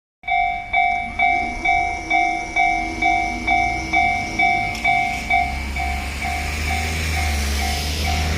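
Japanese railway level-crossing warning bell ringing about twice a second. About five seconds in, the low rumble of an approaching train builds up beneath it and the bell grows fainter.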